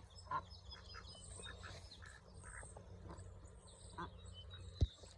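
Ducks quacking now and then: a few short, separate quacks, the clearest about half a second in and about four seconds in, with a sharp click just before the end.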